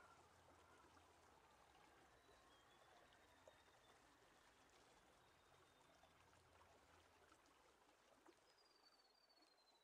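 Near silence: a faint steady hiss, with a few very faint thin high tones.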